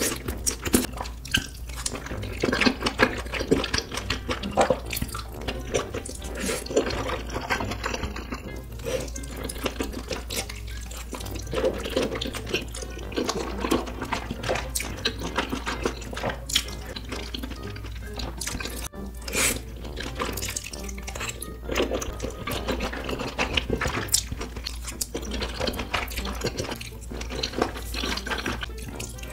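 Close-miked wet chewing and slurping of wide flat noodles in thick red sauce, a dense run of small wet smacks and clicks.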